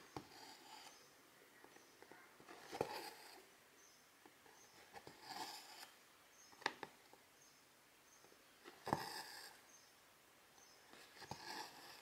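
Faint hand cross-stitching: a needle clicking through 11-count cross-stitch fabric, then silk thread drawn through with a short swish, about every two and a half seconds.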